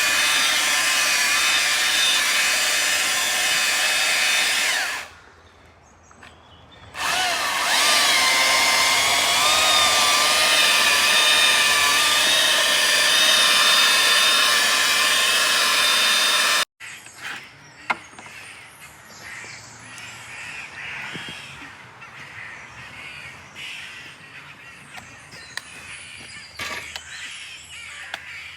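A powered tree-cutting tool running steadily at high speed. It drops away for about two seconds early on, comes back, then cuts off suddenly a little past halfway. In the quieter stretch after it, crows are cawing.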